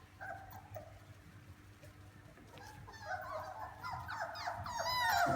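Labrador retriever puppy whining and whimpering in high-pitched calls that bend in pitch, sparse at first, then coming thick and louder over the last two seconds.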